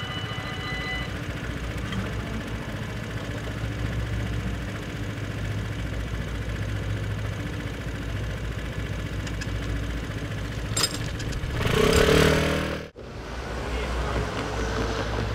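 Road vehicle engines at a railway level crossing: a steady low idle, then about three-quarters of the way through one vehicle revs up and accelerates away, rising in pitch, and is cut off abruptly. A high ringing tone fades out about a second in.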